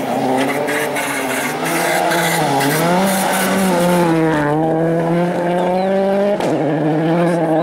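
Ford Fiesta RS WRC rally car's turbocharged 1.6-litre four-cylinder engine at high revs as the car passes close by on a snowy stage. The engine note climbs and dips a couple of times as the driver works the throttle and gears through the bend.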